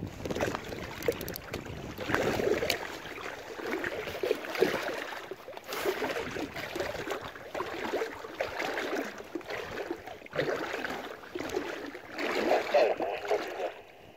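Small waves lapping and slapping against a kayak's hull, an irregular splashing with scattered sharp knocks.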